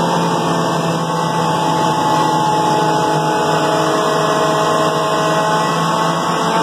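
Hydraulic test stand running an Eaton 54 series hydrostatic pump and two-speed motor under drive pressure. It gives a steady, loud mechanical hum with several held tones over a rushing noise.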